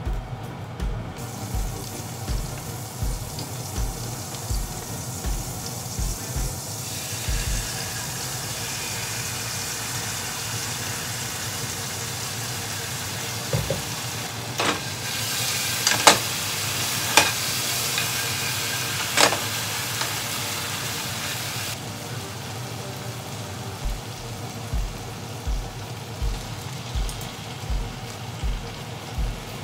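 Oil sizzling in a nonstick frying pan as food fries, swelling about a third of the way in and easing off again near the last third, with four sharp clicks in the middle. Background music with a steady beat underneath.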